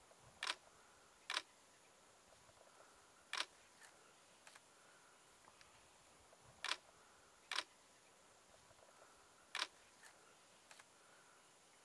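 Six short, sharp clicks at irregular intervals over a faint, steady background hiss.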